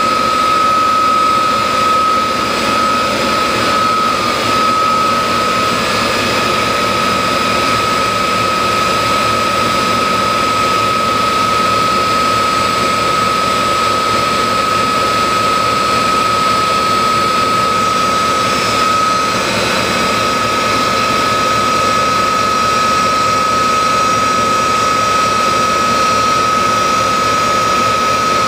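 Loud, steady machinery noise of a milk pasteurising plant: a constant hiss with a high-pitched whine held at one pitch throughout.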